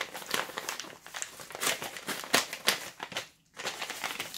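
Brown paper bag crinkling and rustling as gloved hands open and handle it, in irregular crackles with a short pause about three seconds in.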